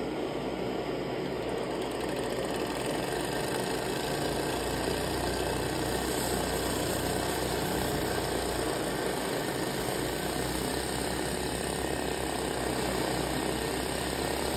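A butane blowtorch flame hissing steadily into the inlet of a small heat licker (flame-licker vacuum) engine, which runs fast with a steady mechanical whirr.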